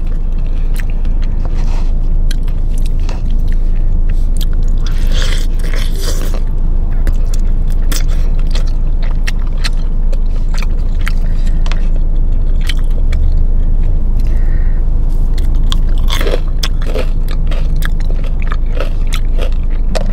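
Close-miked eating of crunchy fried chicken: crisp bites and chewing, with many short crackles and clicks. A steady low hum runs underneath.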